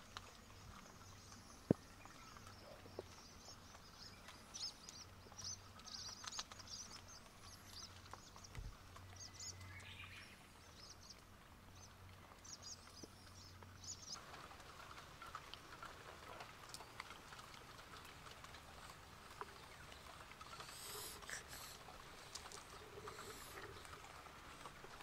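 Faint outdoor ambience with small birds chirping in quick runs of short high chirps through the first half, over a faint low hum that stops about halfway. A single sharp click stands out about two seconds in.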